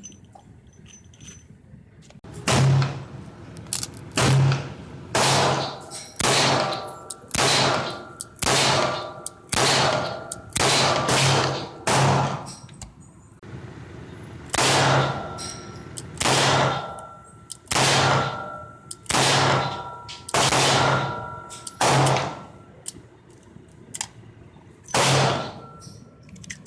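A string of about fifteen gunshots, roughly one a second with a pause of about two seconds midway, each sharp crack followed by a short metallic ring.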